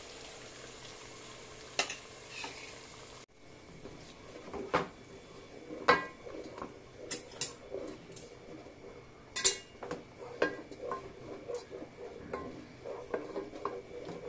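Ground masala paste sizzling in hot oil in a metal pot; after a brief break about three seconds in, a wooden spatula stirs it, knocking and scraping against the pot again and again while it fries. The paste is being roasted until the oil separates.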